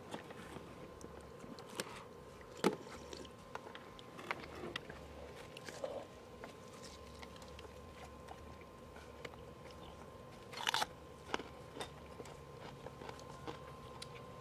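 A person eating chicken soup from a wooden spoon: quiet chewing and sipping, with a few sharper slurps, one about three seconds in and one near eleven seconds in.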